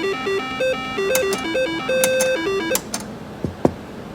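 Haywire slot machine spinning its reels: a stepping electronic beeping tune, with several sharp clicks as the reels stop and a quick falling tone near the end, over casino background noise.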